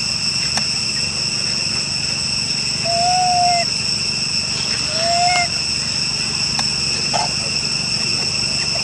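Steady high-pitched insect chorus, with two short clear calls standing out about three and five seconds in and a few faint clicks.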